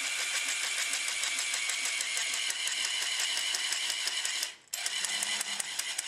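A small robot drive motor and gearing running with a steady whine and a fast, even rattle of clicks. It cuts out for a moment about four and a half seconds in, then starts again.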